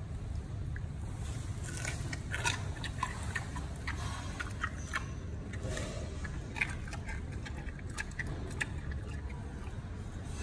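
Giant panda crunching and chewing a piece of carrot close to the microphone: a run of short crisp crunches through the middle, over a steady low rumble.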